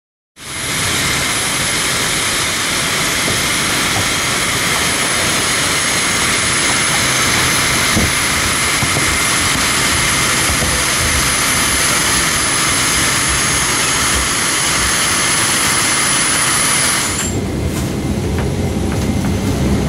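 Jet aircraft engine running steadily: a loud, even rushing noise with a thin high whine held on one pitch. About seventeen seconds in it cuts to a duller, lower rumble heard inside the aircraft's cabin.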